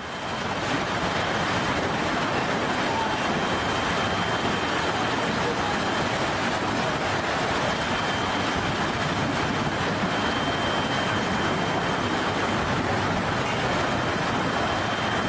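A violent storm: a steady, even rush of heavy rain and wind that comes up at the start and holds without a break.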